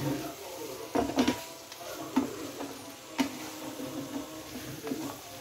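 Wooden spatula stirring masala-coated chicken pieces in a frying pan, with a handful of irregular knocks against the pan over a steady sizzle of frying.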